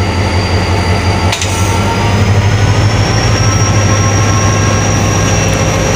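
Pakistan Railways HGMU-30 diesel-electric locomotive's engine running as it pulls the train away from the platform, a steady deep hum that grows louder about two seconds in, with a faint high whine above it.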